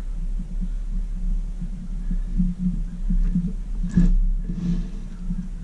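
Steady low electrical hum, with one short sharp click about four seconds in.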